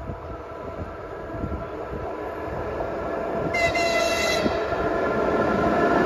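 ČD Cargo class 163 electric locomotive approaching with a freight train, its running noise growing steadily louder. A short, high horn note sounds about three and a half seconds in and lasts about a second.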